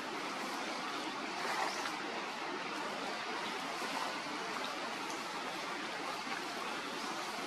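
Steady, even outdoor background hiss with a few faint ticks and rustles; no monkey calls stand out.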